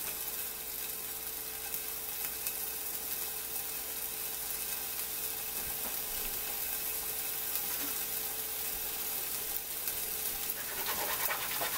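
Salmon fillets frying flesh side down in hot oil in a nonstick skillet: a steady sizzle with fine, fast crackling.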